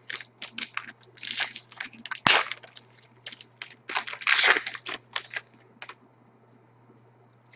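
Foil trading-card pack being torn open and its cards handled: a series of short crinkling, rustling strokes, with one sharp click a little over two seconds in, then a quiet stretch near the end.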